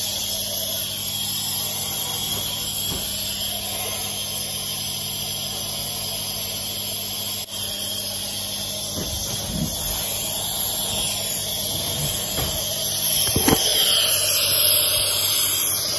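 Hospital wall gas flowmeter set to 7 litres a minute, driving a disposable jet nebulizer: a steady, loud hiss of gas rushing through the nebulizer cup and mouthpiece as it mists the medicine.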